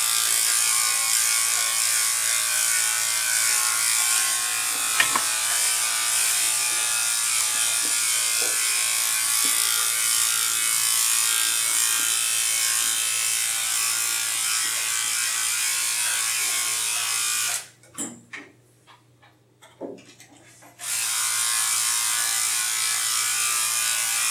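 Electric pet-grooming clipper running with a steady buzz as it shaves a dog's coat. About three quarters of the way through the buzz cuts out for about three seconds, leaving a few small knocks, then comes back.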